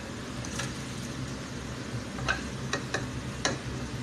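Whole spices, among them a dried black lime, dropped into a pot of frying tomatoes and onions: a few short light clicks over a steady low hum.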